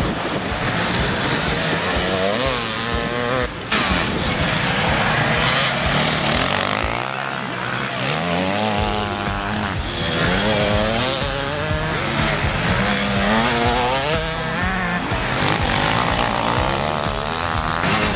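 Enduro motorcycle engines revving hard, the pitch climbing and dropping again and again as the bikes accelerate and shift. There is a sudden break in the sound about three and a half seconds in.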